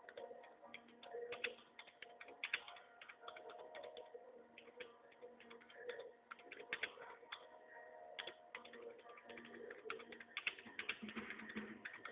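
Faint, irregular light clicks and taps, several a second.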